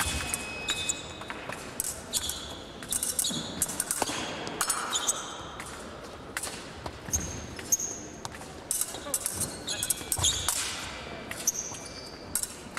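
Fencers' footwork during an épée bout: stamping thuds and shoe squeaks on the piste, with sharp clicks and brief metallic pings, echoing in a large hall.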